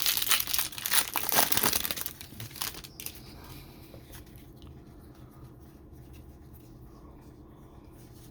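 Plastic wrapper of a trading card pack crinkling and being torn open for about three seconds, then dying away to faint background.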